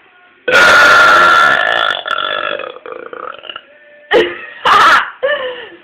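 A woman's long, loud burp starting about half a second in and trailing off, followed near the end by a few shorter loud bursts.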